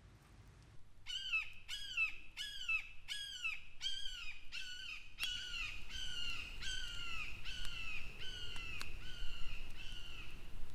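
A bird calling in a long run of short, downward-slurring notes, about two a second, starting about a second in.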